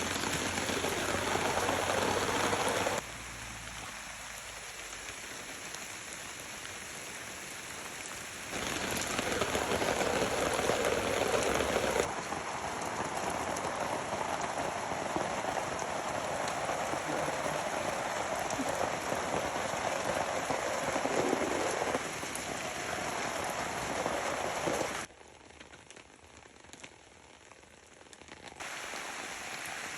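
Steady rain falling, heard as an even hiss of drops, with sudden jumps in loudness several times as the sound changes between takes; quietest for a few seconds near the end.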